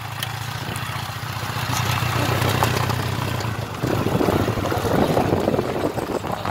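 Small motorcycle engine running steadily under two riders on a dirt track. From about four seconds in, a louder, rough rumbling noise joins the engine hum.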